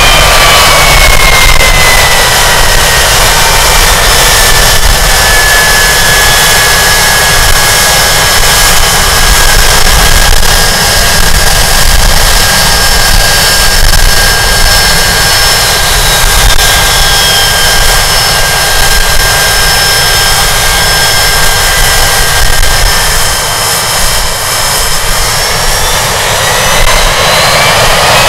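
Hawker Siddeley Nimrod MR2's Rolls-Royce Spey Mk 250 turbofans running on the ground: a loud jet roar with a high compressor whine. The whine falls in pitch over the first few seconds as the engines wind back, holds steady, then rises again near the end as they spool up.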